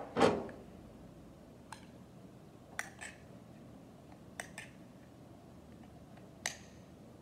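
A spoon and a peanut butter jar being handled: a soft knock just after the start, then a few light clicks and taps of spoon, jar and lid.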